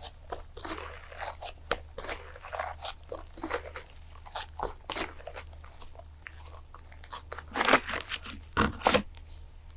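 Fluffy slime being squished and pressed by hand, making irregular crackles and small pops, with a louder run of pops about eight seconds in, over a faint low hum.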